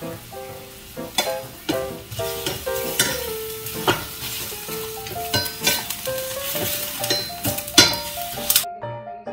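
Food sizzling in a stainless steel frying pan over a gas flame, stirred with a wooden spatula that scrapes against the pan, over background music. The sizzling cuts off suddenly near the end.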